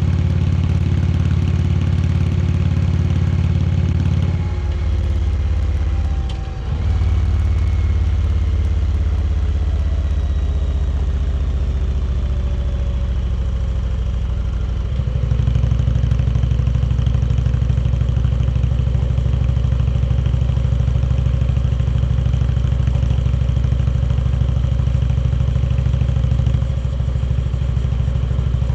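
Indian Chieftain Dark Horse V-twin engine running under way. Its note drops at about four seconds, dips briefly, and winds down slowly. About fifteen seconds in it grows louder and then holds steady.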